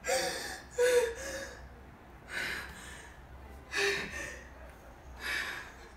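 A young woman crying, drawing five short, gasping sobbing breaths about a second and a half apart.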